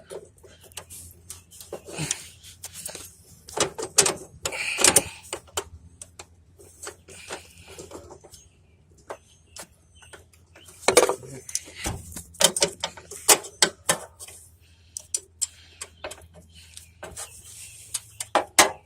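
Irregular metal clicks and scrapes of a small hand tool prying a safety pin out of the deck control arm on a riding mower, coming in scattered bursts over a faint steady low hum.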